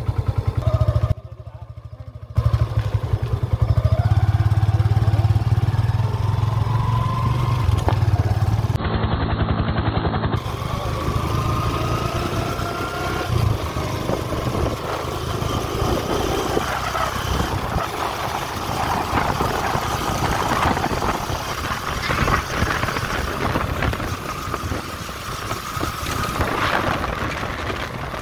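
Yamaha FZ V2 FI motorcycle's single-cylinder engine running on the move, its note rising in several pulls. Wind and tyre noise on the dirt road grow louder in the second half.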